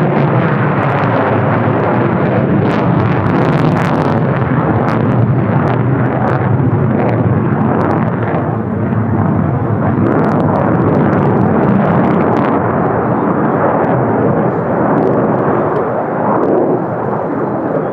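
F-35A Lightning II's single Pratt & Whitney F135 jet engine, loud and continuous with dense crackling throughout, easing off slightly near the end.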